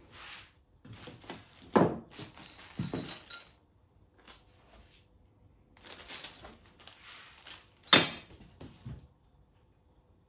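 Hand-handling noise of parts and packaging: irregular rustling, clinking and light clatter, with a sharp knock about two seconds in and a louder one about eight seconds in.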